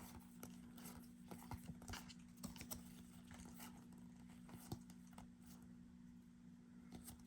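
Faint, irregular light clicks and ticks of trading cards being handled and flipped through one by one, over a steady low hum.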